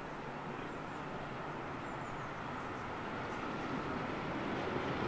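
Two Class 37 diesel locomotives heard from a distance as they approach, their English Electric V12 engines making a steady drone that grows slowly louder.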